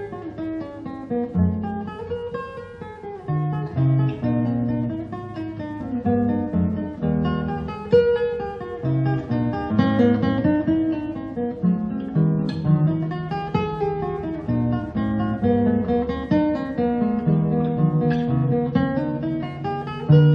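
Background music played on an acoustic guitar, with a run of plucked notes.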